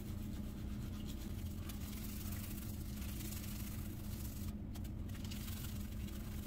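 A steady low hum with an even hiss above it, under the soft swishing of a badger shaving brush whipping up shaving soap lather.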